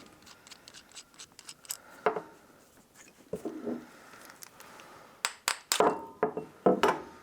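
Small metal parts and hand tools clicking, clinking and knocking as a small-engine carburetor is taken apart by hand, in irregular sharp taps that come thickest near the end.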